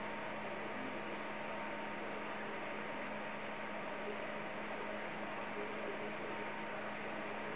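Steady electrical hum with a low drone and a thin higher tone over an even hiss, unchanging throughout.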